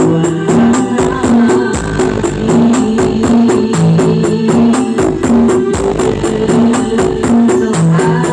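Loud music with a fast, steady beat and a repeating bass melody, played through a sound horeg, a huge stacked-loudspeaker sound system of the East Javanese carnival kind.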